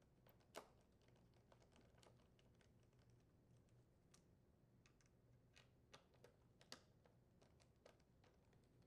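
Faint, scattered small clicks and taps, with a slightly louder one about half a second in and another near the seven-second mark: a screwdriver and screws being worked out of a washer door's plastic hinge cover.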